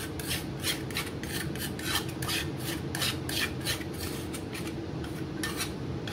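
Spice paste being ground and crushed by hand: a steady run of short rasping strokes, about three a second.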